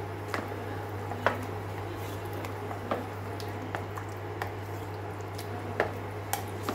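Spoon stirring a thick tomato sauce with minced meat in a plastic bowl: wet squelching, with irregular clicks of the spoon against the bowl, over a steady low hum.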